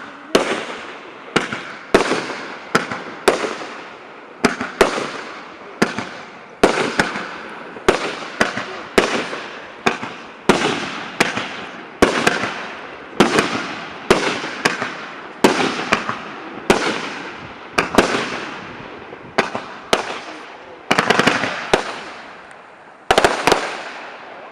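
PT-91B 'Assorti' fireworks cake, a 49-shot battery with shells up to 100 mm, firing shot after shot: a sharp bang roughly every half-second to second, each followed by crackling and hissing that dies away. The last bangs come shortly before the end, and the noise then fades out.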